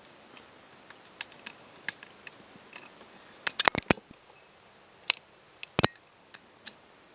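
Scattered light clicks and knocks of hands handling hard plastic, with a quick run of them about three and a half seconds in and a few more near six seconds, over faint room hiss.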